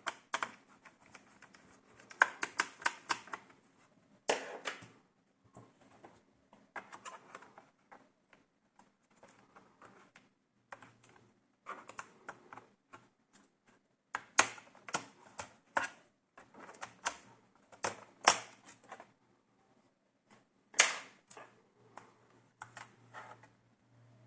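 Sharp plastic clicks, snaps and taps from a laptop's plastic case and small parts being handled and pried apart. They come in irregular clusters, some as quick runs of clicks, with the loudest snaps about 18 and 21 seconds in.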